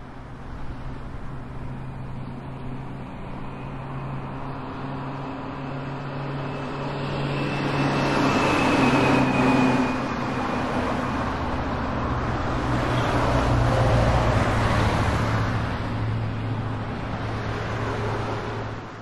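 Road traffic on a busy multi-lane street: a steady rush of passing cars and trucks under a low engine hum, swelling louder about seven seconds in and again around thirteen to fifteen seconds as vehicles go by.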